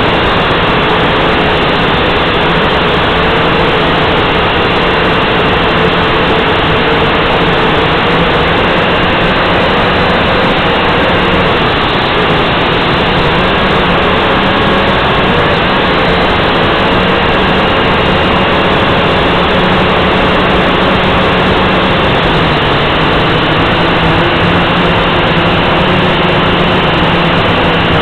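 Small drone's electric motors and propellers buzzing steadily and loudly, their pitch wavering slightly as it flies, heard close up through the aircraft's own onboard camera microphone.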